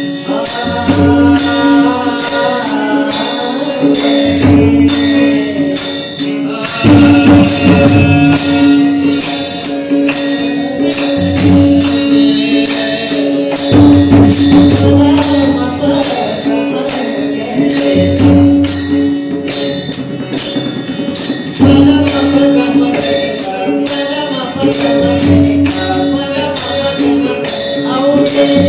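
Marathi devotional abhang singing with mridang accompaniment: a male voice sings in phrases over a steady held drone, with low mridang strokes and a steady beat of high clicks.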